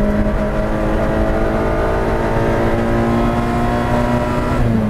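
Peugeot 106 Rallye's four-cylinder engine heard from inside the cabin, pulling flat out with its note climbing slowly, then dropping near the end.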